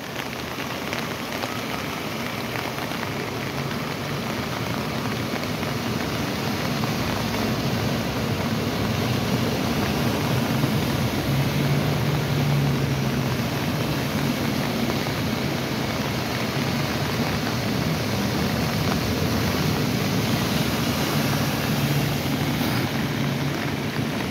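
Steady rush of floodwater flowing fast down a flooded street channel. A car's engine hum rises over the water about halfway through as a minivan drives through the flood, and again near the end.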